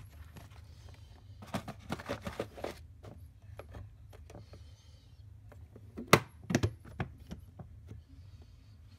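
Hard plastic parts of an electric dustpan being handled: a quick run of clicks and rattles about a second and a half in, then two sharp, louder clicks about six seconds in, with a few lighter ticks after.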